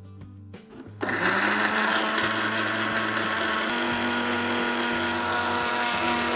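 Electric mixer grinder (mixie) switched on about a second in and running steadily at speed. It is wet-grinding sautéed herbs and onion with a little water into a fine green paste.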